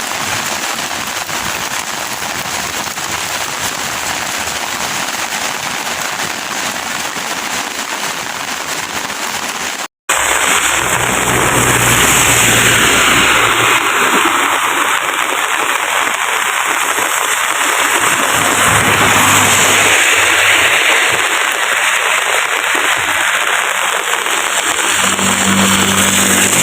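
Heavy rain pouring down, a dense steady hiss of drops hitting surfaces. It breaks off for an instant about ten seconds in and resumes louder, with a faint low hum now and then.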